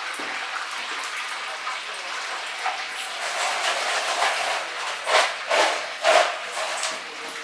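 Food deep-frying in hot oil: a steady sizzle, with a few louder crackling bursts about five to six seconds in.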